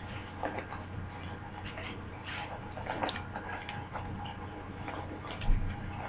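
Trading cards being handled and sorted by hand: light, irregular clicks and rustles, with a soft thump about five seconds in.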